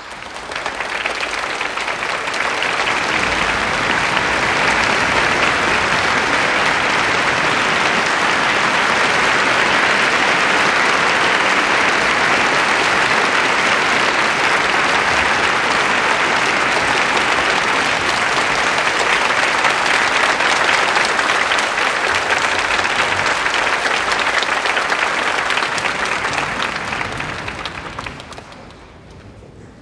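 Concert audience applauding. It builds up within the first couple of seconds, holds steady, and dies away near the end.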